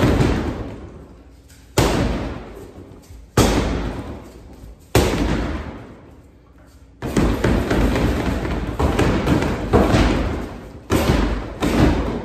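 Gloved punches landing on a Century Wave Master freestanding heavy bag with a water-filled plastic base. Each blow is a sharp thud followed by a long fading rumble as the bag rocks and the water in the base sloshes. Three single blows come about a second and a half apart, then after a short pause a rapid flurry of strikes starts about seven seconds in.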